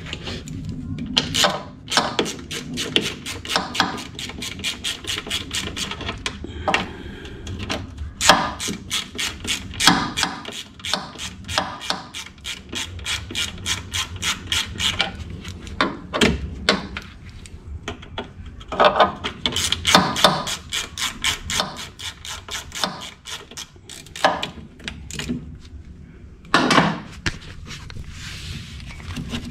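Hand ratchet clicking in quick runs as the bolts holding the ignition coil are loosened, with a few sharper metal knocks in between.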